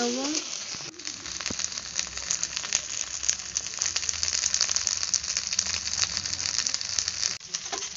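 Okra and potato pieces with spice paste sizzling and crackling in hot mustard oil in an aluminium kadai, a steady dense crackle while being fried down. The sound dips briefly about a second in and breaks off for a moment near the end.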